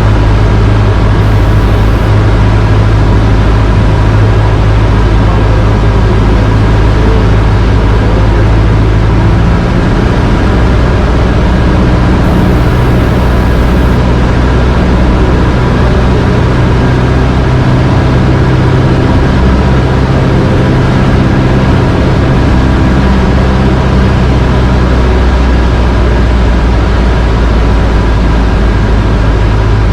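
Cessna 152's four-cylinder Lycoming piston engine and propeller running steadily, with its pitch shifting about ten seconds in and again near the end as the power setting changes.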